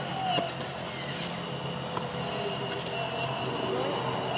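Hydraulic pump of a radio-controlled Komatsu PC360 excavator running, a steady machine hum with a thin high whine on top, as the upper body slews round.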